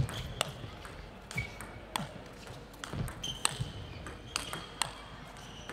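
Table tennis rally: the plastic ball clicks sharply off the players' bats and the table in an irregular back-and-forth, about one to two hits a second.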